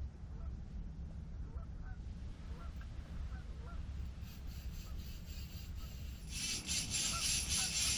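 Ice-fishing reel being cranked to bring up a hooked crappie: a rasping, ticking whirr that starts about four seconds in and grows louder about six seconds in. Under it a steady low rumble and faint, short honk-like calls.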